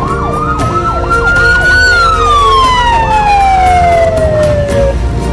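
A police siren winds up in one long wail, then slowly winds down and stops, with a faster yelping sweep underneath. Background music with a steady beat runs beneath it.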